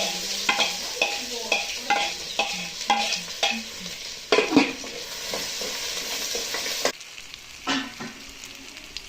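Food sizzling in hot oil in a pan while a spoon scrapes and stirs it, at about two to three strokes a second for the first few seconds. One louder scrape comes midway, and the sizzle drops quieter near the end.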